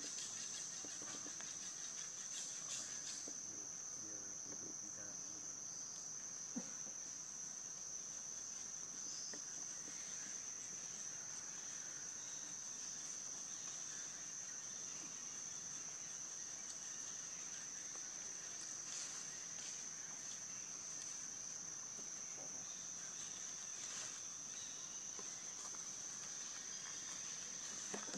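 Insects in the forest droning steadily in one unbroken high-pitched tone, with a single brief click about six seconds in.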